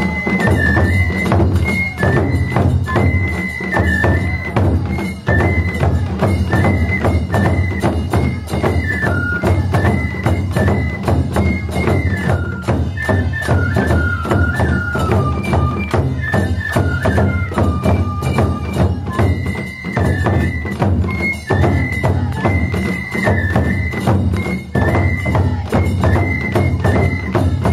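Japanese taiko ensemble playing: transverse bamboo flutes carry a high melody over a dense, steady beat of small stick-struck drums and a deep large barrel taiko. The flute line drops lower in the middle and climbs back high near the end.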